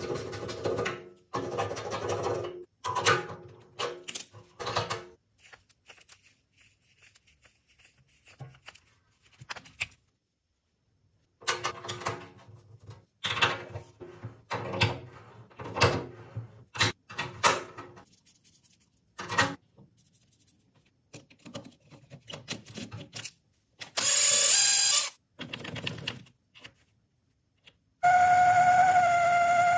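Plumbing hand tools working copper pipe and fittings: a run of short clicks, taps and scrapes in brief edited bursts with sudden silent gaps. A steady whining tone starts near the end.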